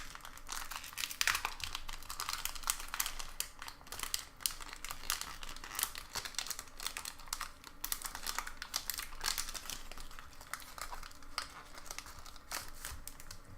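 Foil wrapper of a Pokémon booster pack crinkling and rustling as it is torn open and handled, in a steady run of irregular crackles.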